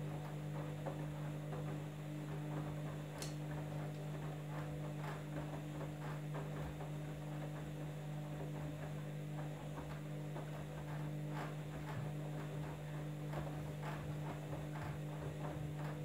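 Candy front-loading washing machine turning its drum during the wash: a steady motor hum, with water sloshing and wet clothes flopping inside the drum.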